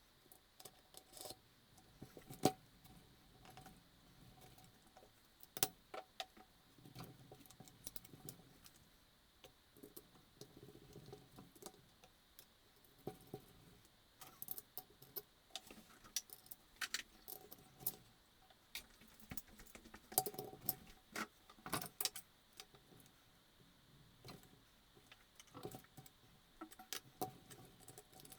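Irregular metallic clicks, taps and clinks of hand tools and small parts handled while reassembling a Husqvarna 543XP chainsaw, with soft rustling between the clicks.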